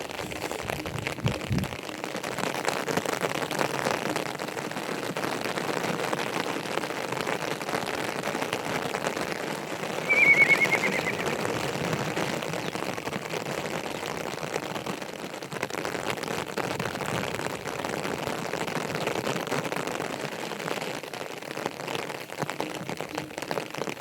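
Steady rain falling, an even hiss throughout. About ten seconds in comes a brief high, wavering call that falls in pitch; it is the loudest moment.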